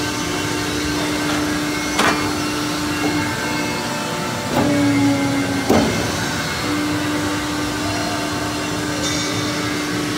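SAMCO TC-75 die-cutting press running with a steady hum. Sharp knocks come about two seconds in and again near six seconds as its sliding cutting table is moved by hand. Just before the second knock, the hum gets louder and shifts in pitch for about a second.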